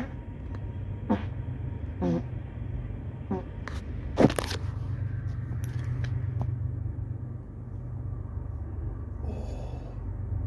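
A man coughing in a string of short hacking coughs, about one a second over the first four seconds, the strongest about four seconds in, over a steady low rumble.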